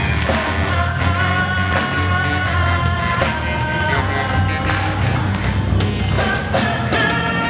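Live band performing: a woman singing into a handheld microphone over electric bass and a drum kit, with long held notes.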